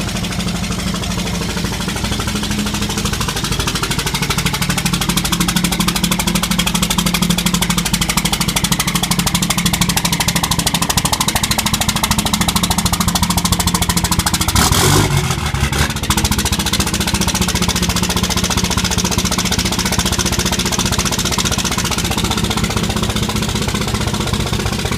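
5.9 litre common-rail Cummins inline-six turbodiesel idling with a fast, heavy clatter, which the owner puts down to all six injectors being bad. A brief louder noise cuts across it about fifteen seconds in.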